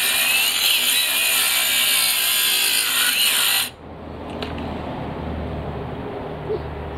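Cordless 18 V brushless angle grinder fitted with a concrete wheel, grinding under load with a high motor whine. The whine and grinding cut off abruptly about halfway through, leaving a quieter low rumble.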